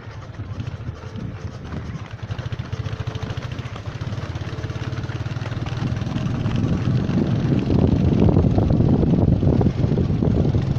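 Footfalls of a large group of runners on a dirt road, a dense quick patter that grows louder in the second half as the pack closes in, over a steady low engine hum.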